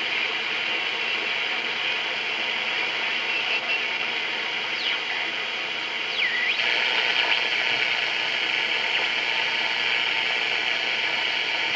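Panasonic RF-2900 shortwave receiver hissing with band noise while being tuned through the amateur bands with its BFO on, with no usable signal. Twice, about five and six seconds in, a whistle glides down in pitch as the dial passes a carrier.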